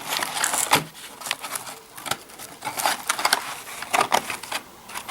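Packaging being handled during an unboxing: irregular crinkles, rustles and light knocks, loudest near the start and again about three and four seconds in.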